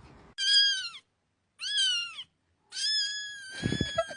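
A cat meowing three times, high-pitched: two short meows that rise and fall, then a longer drawn-out one. A few soft knocks near the end.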